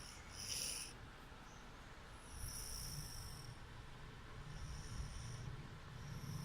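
An older sister snoring in her sleep: a low rasping snore with a hissing, whistly breath about every one and a half to two seconds.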